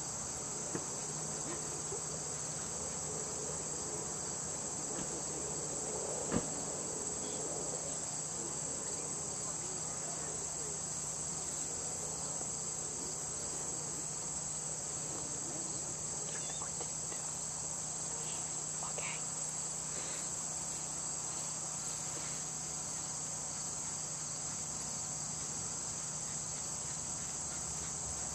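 Steady chorus of field insects, a continuous high-pitched trill, with a single sharp click about six seconds in.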